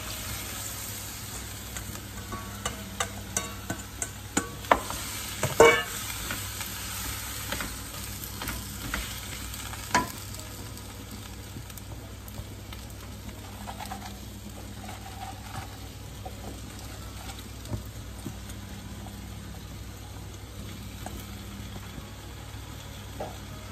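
Chopped Chinese cabbage going into a hot wok and being stirred in, sizzling, with a run of sharp metal clacks against the wok in the first ten seconds or so. After that, a steady sizzle with only the odd knock.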